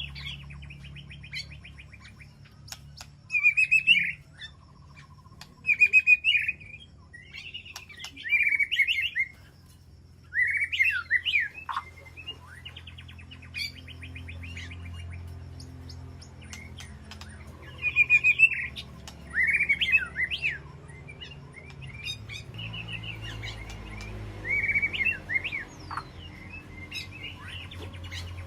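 White-rumped shama singing: short, loud, varied whistled phrases every couple of seconds, alternating with fast trilled chatter, over a steady low hum.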